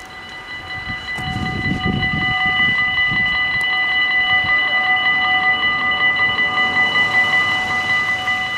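Dutch automatic level-crossing bells ringing rapidly and continuously, starting just as the crossing's red lights begin to flash. A short low rumble sounds under the bells about a second in.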